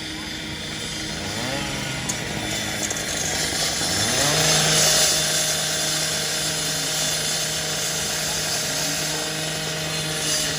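A gas-powered saw's small two-stroke engine revs up over the first few seconds, then runs steadily at high speed with a loud hiss that peaks about five seconds in.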